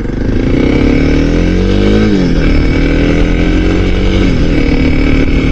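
Small motorcycle engine accelerating under the rider, heard from a mic inside the helmet: its pitch climbs, drops sharply about two seconds in as it shifts up a gear, and drops again about four seconds in at a second upshift. Wind rush runs under it.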